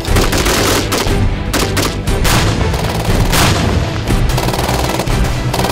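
Rifle gunfire from M16-pattern assault rifles: repeated sharp shots at uneven spacing, over background music.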